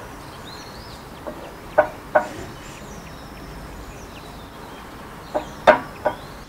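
Wooden spoon stirring a cream sauce in an enamelled frying pan, with a few short knocks and scrapes against the pan: two about two seconds in and a cluster near the end.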